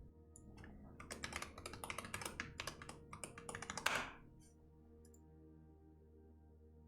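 Fast typing on a computer keyboard: a dense run of keystrokes for about three seconds, ending in one louder, longer key press, then stopping. Soft background music plays underneath.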